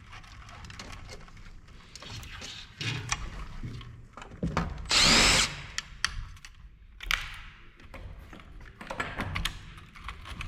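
A power drill-driver runs in one short burst about halfway through, its pitch rising as it spins up. Scattered clicks and knocks of parts being handled around it.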